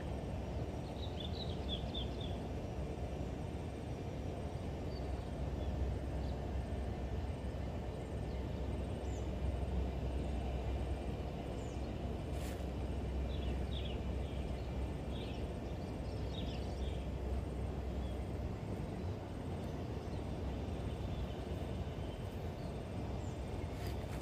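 Steady low outdoor rumble with a few short bird chirps, near the start and again around the middle, and a single sharp click near the middle.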